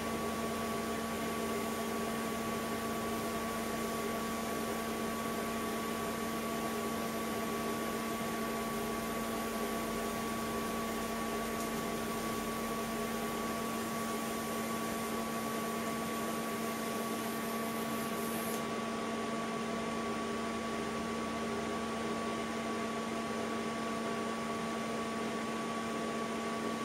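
TIG welding set running with a steady electrical hum and hiss while the arc tack-welds a stainless steel tube. The high hiss drops away about two-thirds of the way through as the arc stops, leaving the machine's hum.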